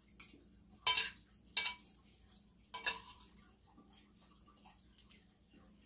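Metal cutlery clinking against a plate while eating: three sharp clinks within the first three seconds, the first two close together.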